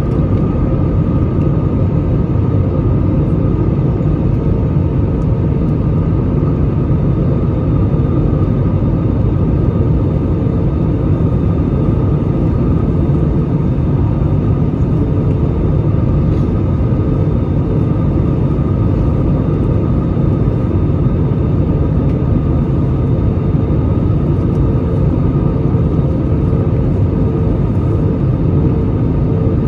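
Steady low roar inside the cabin of an Airbus A320 on final approach with flaps extended: engine and airflow noise, with a faint steady hum above the rumble.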